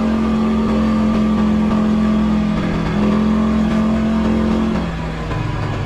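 CFMOTO ATV engine running under steady revs while riding. It dips briefly about halfway through, then drops to lower revs near the end.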